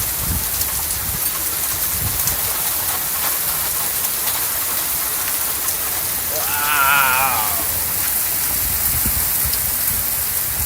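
Heavy thunderstorm rain pouring down, a steady hiss of rain on surfaces. About two-thirds of the way through, a brief wavering high tone rises over it.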